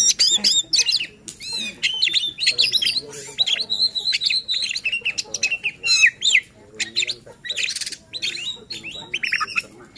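Oriental magpie-robin (kacer) singing a fast, varied song of sharp whistles, chirps and harsh notes, with a short buzzy rattle near the end. It is the agitated, persistent song used to provoke other magpie-robins into singing.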